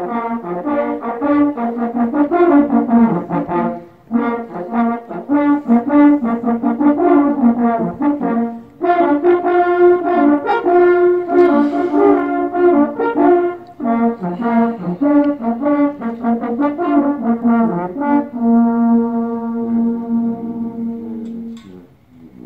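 Ensemble of hunting horns playing a fanfare in several notes at once, in short phrases with brief breaks, closing on one long held chord near the end.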